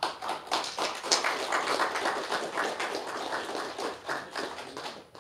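A small group applauding, with many quick overlapping claps that start abruptly and die away near the end.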